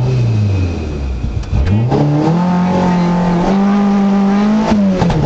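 Toyota Celica Turbo 4WD rally car's turbocharged four-cylinder engine, heard from inside the cabin. The revs fall back at the start line, then the car launches about a second and a half in and pulls hard through the gears, the pitch dropping at each upshift.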